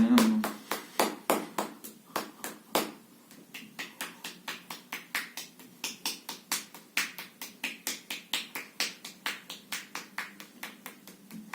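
A hand rapidly pummelling a relaxed, hanging arm in percussive self-massage: a quick, even train of skin-and-muscle slaps, about five a second. The blows are heavier in the first three seconds, then lighter.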